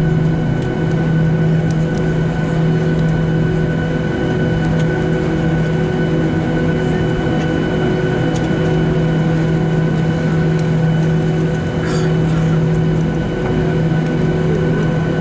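Boeing 737 jet engines at taxi power heard from inside the passenger cabin: a steady hum with several held tones over a constant rush of noise.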